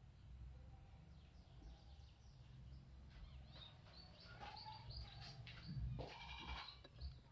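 Faint birds chirping, a flurry of short, falling chirps over a low steady hum.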